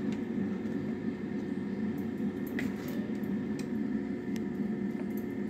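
Air fryer running at 180 °C: a steady low fan hum, with a few faint clicks of a spoon as the chapati cone is stuffed.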